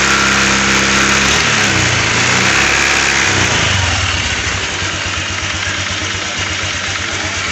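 Honda Vario 125 scooter's single-cylinder engine held at raised revs, then the revs fall away over about two seconds, starting a second and a half in, and it settles into a steady idle.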